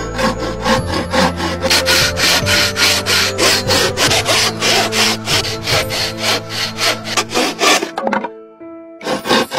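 Hand saw cutting through a block of wood in quick, even back-and-forth strokes, pausing briefly about eight seconds in and starting again near the end.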